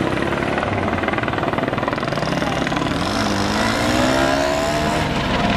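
Light helicopter flying low overhead, its rotor chopping steadily, with an engine note rising in pitch from about three seconds in.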